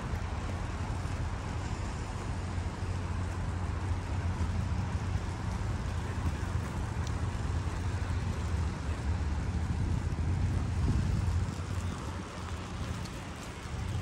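Steady outdoor ambience: a low rumble of wind and distant city traffic with an even hiss above it, a little quieter for a couple of seconds near the end.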